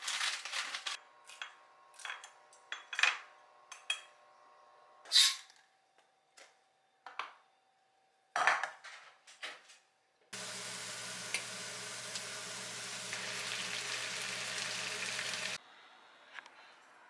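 Dishes and plastic food containers being handled, with scattered clinks and knocks, for about ten seconds; then pine mushrooms sizzling in a frying pan, a steady hiss that starts and cuts off abruptly.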